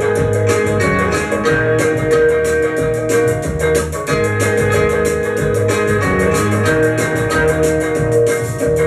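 Rock 'n' roll record playing: guitar and bass over a steady, even drum beat.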